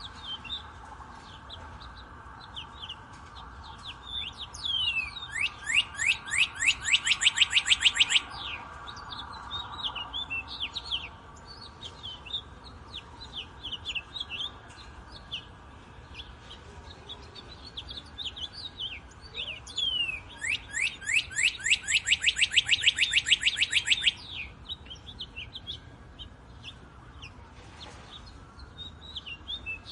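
Northern cardinal singing: two long series of fast repeated downslurred notes, about seven a second, one starting about five seconds in and another about twenty seconds in, over softer chirps of other birds.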